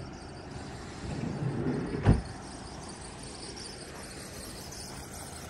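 A vehicle sound swelling for about a second over steady background noise, then a single sharp thump about two seconds in.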